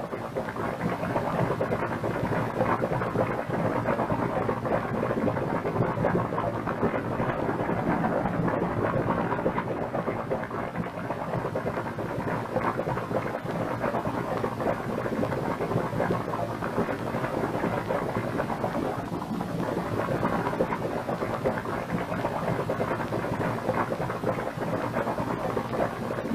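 Steady, unbroken rumbling, rushing noise: a television special-effects sound for a white cloud-like mass billowing through a city street.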